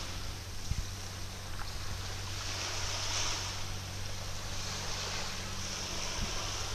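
Water washing around an anchored yacht, its hiss swelling and easing every couple of seconds, over a steady low hum of the boat's machinery, with a soft bump about a second in.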